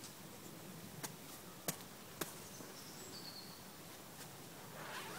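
Quiet outdoor background with three sharp clicks in the first half, the last two the loudest, and a brief faint high chirp about three seconds in.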